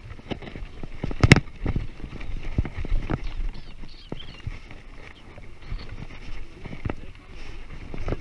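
Specialized Riprock 20" kids' mountain bike rattling and knocking as it rolls over a bumpy dirt track, picked up by a camera mounted on the handlebars: irregular sharp knocks over a low rumble, the loudest about a second in.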